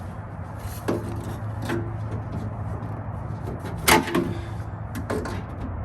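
Metal clicks and clanks of angle pliers working the lock-cylinder retaining clip inside the door of a 1980 Toyota Celica RA40, about half a dozen, the loudest about four seconds in, some with a brief hollow ring from the door shell. A steady low hum runs underneath.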